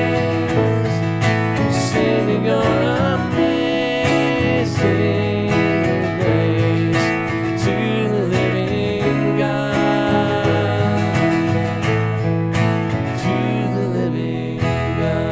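Live worship song: a strummed acoustic guitar with a voice singing over it.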